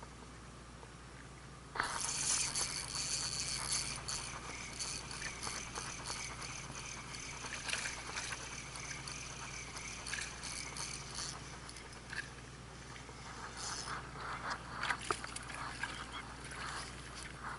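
Daiwa 13 Certate 2004CH spinning reel being wound in, a steady whirring with a few fixed high pitches that starts suddenly about two seconds in and fades somewhat later. Scattered light clicks and taps near the end.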